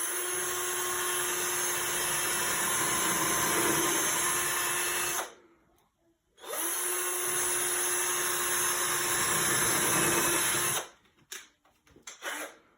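Power drill with a 1/8-inch bit running steadily while pre-drilling two pilot holes, one run after the other with a brief pause between. A few short knocks near the end.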